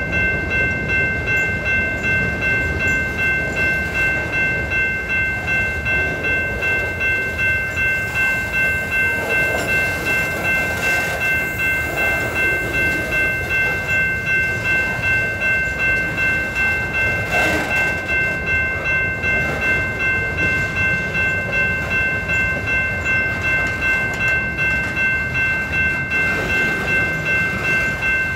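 Freight cars of a BNSF manifest train, covered hoppers and boxcars, rolling past close by: a steady noise of steel wheels running on the rails with an even rhythmic pulse. Over it runs a steady high-pitched ringing made of several tones that lasts throughout.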